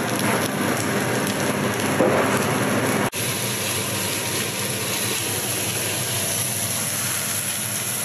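Steady, even hiss, broken off sharply for an instant about three seconds in.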